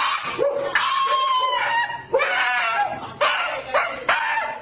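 Shiba Inu screaming: a string of loud, high, drawn-out yelping cries, about six in a row, the second one the longest.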